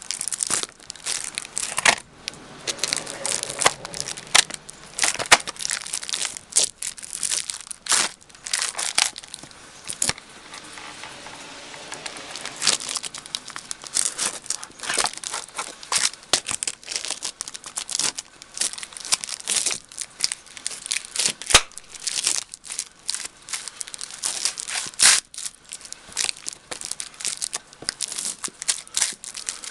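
Lucchese roper boots stomping on and grinding an empty onion container against concrete, giving repeated irregular crackling, crumpling crunches. There is a softer, sparser stretch of crinkling about a third of the way in.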